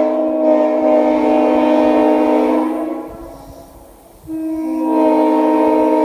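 Leslie S3L three-chime air train horn sounding a steady chord. About three seconds in it tails off, then sounds again just after four seconds, the low note coming in first and the other two joining about half a second later.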